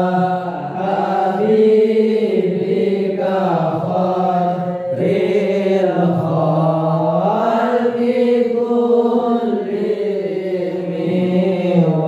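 A young male voice chanting Islamic sholawat unaccompanied through a microphone, in long drawn-out notes that bend slowly up and down in pitch.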